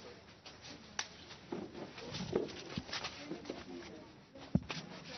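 Faint, indistinct voices in a room, with a sharp click about a second in and a louder thump near the end.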